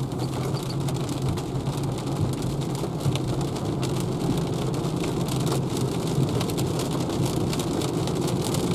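Big raindrops striking the windshield of a Renault Zoe electric car, heard inside the cabin: a dense patter of sharp drop hits over a steady low road noise from tyres on the wet road.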